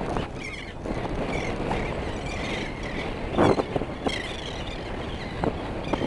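Wind buffeting the microphone, with a flock of seabirds calling faintly overhead in scattered chirps and one short knock about three and a half seconds in.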